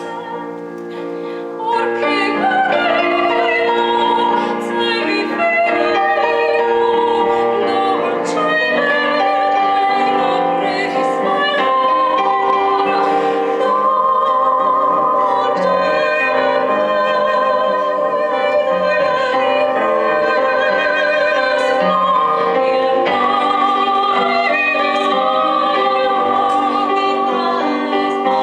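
Soprano and mezzo-soprano singing a classical duet in operatic style with vibrato, accompanied by piano. The opening second or two is quieter before the voices come in fully.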